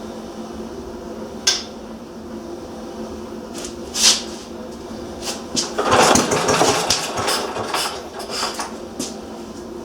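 Briggs & Stratton Model Q single-cylinder engine running with a steady hum, while metal parts or tools clink and knock; the loudest is a rattling clatter of metal about six seconds in.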